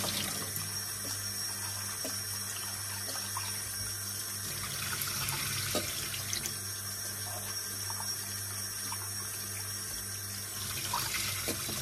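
Kitchen tap running into a stainless steel pot as it is rinsed out in the sink, steady water noise with a few light knocks of the pot.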